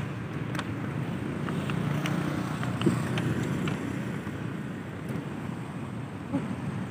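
City street traffic: a steady hum of passing cars, with wind on the microphone and a few faint clicks.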